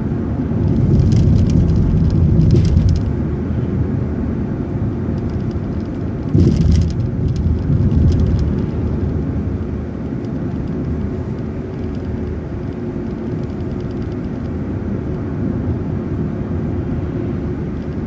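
City transit bus driving along a street, heard from inside the bus: a steady low rumble of engine and road noise with rattling. It swells twice, for a couple of seconds near the start and again around the middle.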